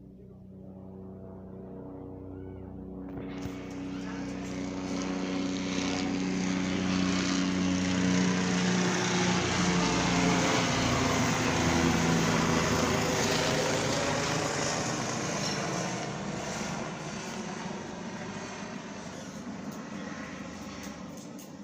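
Bell 407 helicopter flying past, its turbine and four-blade rotor growing louder, peaking about halfway, then fading away, the tones dropping slightly in pitch as it goes by.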